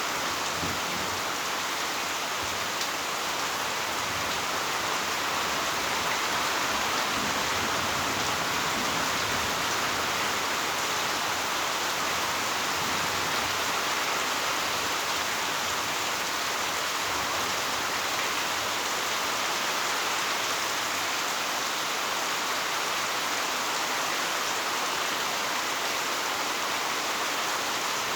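Heavy rain pouring steadily, an even hiss of rain on surfaces.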